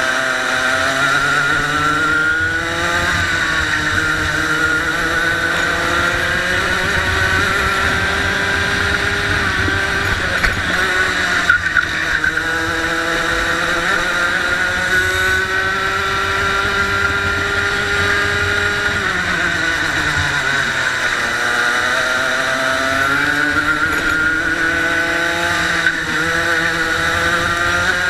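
Racing kart engine heard from on board the kart, its pitch climbing steadily along the straights and dropping quickly twice, about a third of the way in and again about two-thirds through, as the driver lifts for corners before it revs up again.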